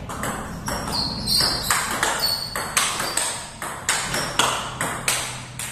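Table tennis rally: the ball clicking sharply off paddles and table in quick alternation, about three hits a second, each click dying away briefly in the room.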